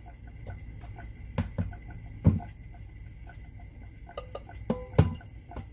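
Knocks and clunks of a white plastic flour bucket and its contents being handled on a kitchen counter, a handful of separate knocks with the loudest about two and five seconds in, over a steady low hum.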